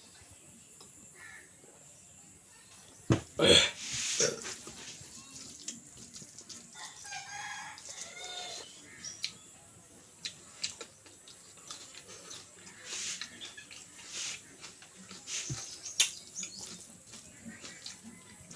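A rooster crowing once in the background, about 7 seconds in, a call of about two seconds. Between it come scattered clicks and a few loud sharp knocks, the loudest about three to four seconds in and another near the end.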